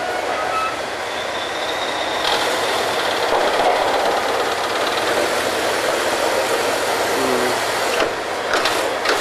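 Steady mechanical noise of a working drilling rig, its machinery and winch running while a joint of drill pipe is hoisted. There are a few metal clanks near the end.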